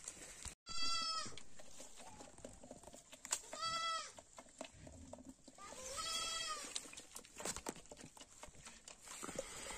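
A goat bleating three times, each bleat under a second long and a couple of seconds apart, rising and then falling in pitch.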